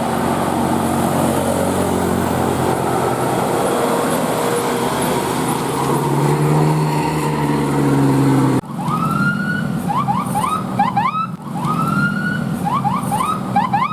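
Bus engine and road noise with low, wavering tones. About two thirds of the way in this cuts to a multi-tone 'telolet' bus horn playing a siren-like tune, twice over: a rising swoop that holds, then a run of short rising notes.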